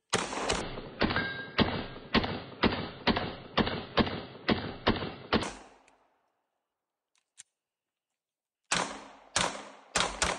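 Semi-automatic pistol fired in rapid succession, about a dozen shots at roughly two a second, each with a short decaying tail. After a pause of about three seconds, a faster string of shots begins near the end.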